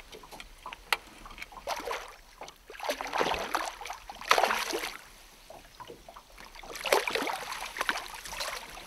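Water splashing as a hooked rainbow trout thrashes at the surface beside the boat and is scooped into a landing net, in several bursts about three, four and a half and seven seconds in. A single sharp click about a second in.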